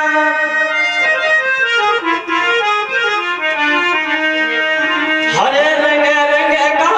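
Harmonium playing a bhajan melody, its reeds sounding steady held notes that step from pitch to pitch. About five seconds in, a man starts singing over it.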